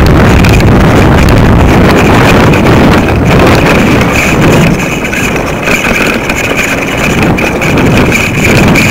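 Loud, steady wind noise buffeting the microphone of a camera rig hanging from a kite line, with a steady high whine running through it.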